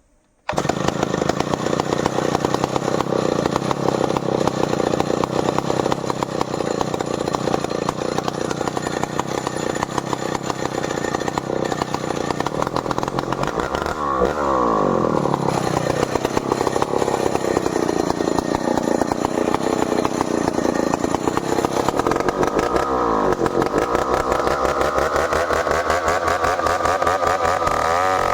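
Stihl 070 two-stroke chainsaw running hard, coming in abruptly about half a second in. Its engine pitch sags and climbs back a few times, as the saw is loaded in a cut through merbau wood and then eases.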